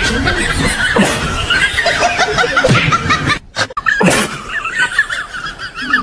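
People laughing, with a brief break about three and a half seconds in.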